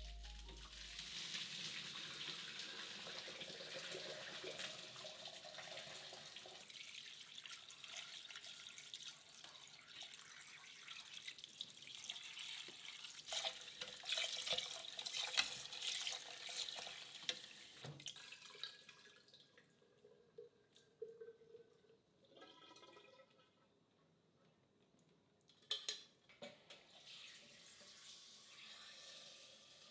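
Kitchen tap running into a metal pot while meat is rinsed in a pressure-cooker pot and stirred with tongs, with metal clinks. The water stops about two-thirds of the way through, followed by a brief squeak and a few knocks of pots being handled.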